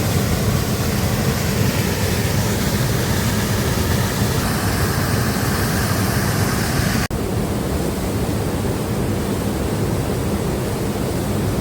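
Waterfall roaring: a steady, heavy rush of falling water, with a brief break about seven seconds in where the footage cuts.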